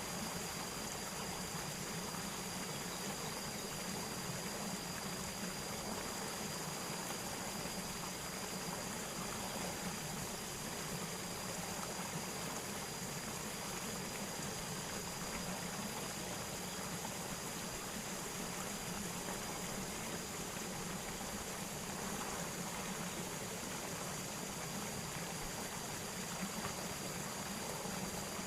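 Steady rush of flowing water, even and unbroken, with a thin steady high tone above it.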